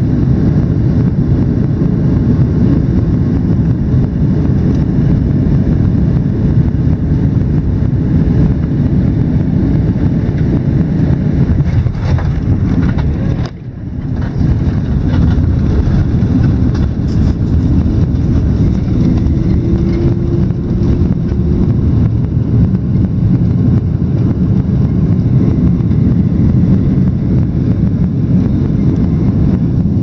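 Airliner cabin noise: a loud, steady, low rumble of the jet engines and the airflow past the fuselage, heard from inside the cabin. It dips briefly about halfway through.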